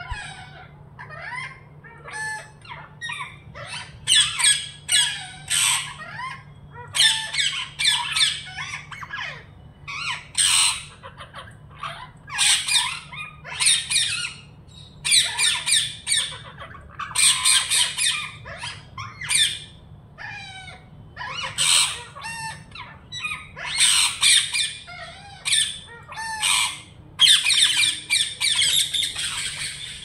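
Rose-ringed parakeets squawking: harsh, high-pitched calls in repeated bursts every second or two, several birds calling over each other.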